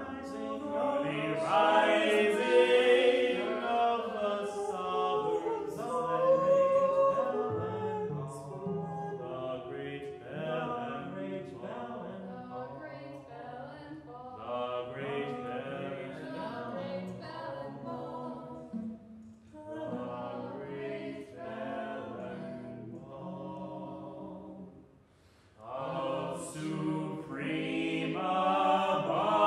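Several voices singing in a chorus-like, a cappella style, with held and shifting pitches. The singing fades almost to nothing shortly before the end, then comes back louder.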